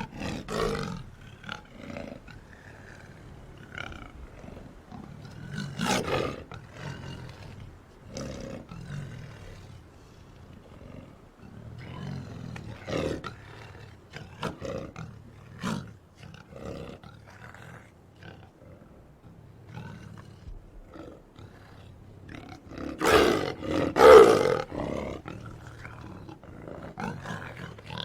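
Big-cat roar and growl sound effects: a string of separate snarling roars and growls of uneven length, the loudest a single roar about six seconds in and two big roars back to back about three-quarters of the way through.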